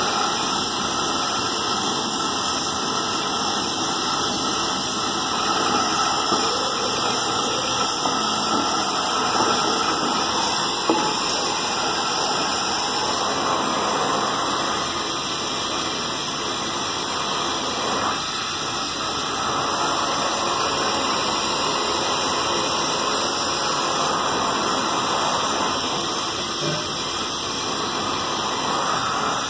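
Gas welding torch flame hissing steadily while a metal lota (water pot) is being welded.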